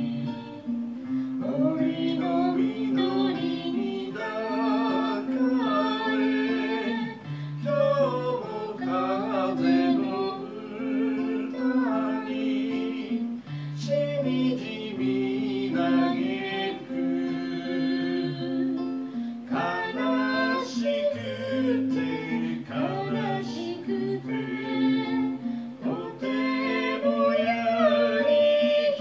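A man singing a song to his own acoustic guitar accompaniment.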